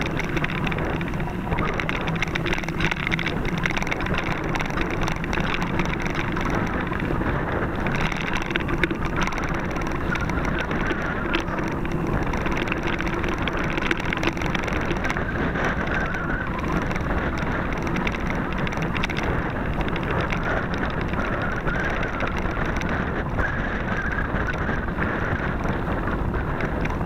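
Mountain bike riding over a rough dirt singletrack: continuous tyre rumble with many small rattles and knocks from the bike, and wind on the microphone.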